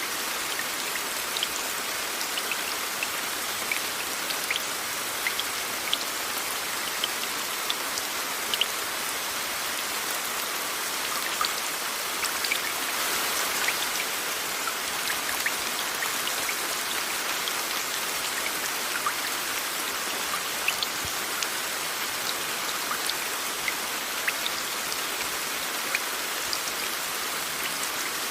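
Steady rain mixed with white noise: an even hiss with many separate drops ticking through it.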